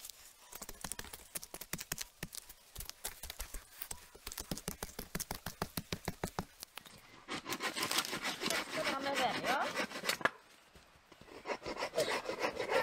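Hand saw cutting wood in quick, regular strokes, several a second, with a brief stop about ten seconds in.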